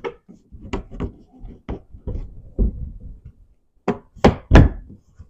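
Plastic door panel of a 2009 Smart car being shoved and worked forward to slide it off its locking tabs: a string of knocks and clatters, ending in three hard thumps about four seconds in.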